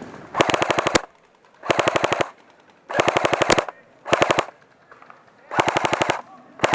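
Airsoft electric rifle firing full-auto in short bursts of about half a second each, five in a row with a sixth starting near the end, each burst a fast, even rattle of shots.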